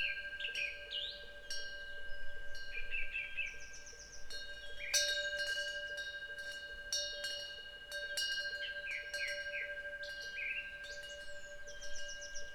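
Temple wind bells (pungyeong) chiming, struck again and again at uneven intervals, each stroke ringing on, over a steady sustained ringing tone. Small birds chirp between the strikes, with quick repeated twitters about three and a half and twelve seconds in.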